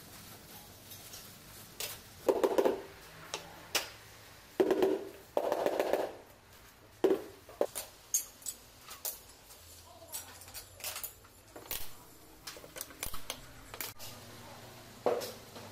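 Handling noise from laying large ceramic floor tiles: a few short scraping bursts in the first half as a tile is worked down onto the adhesive, then scattered light clicks and taps from fitting plastic tile-levelling clips.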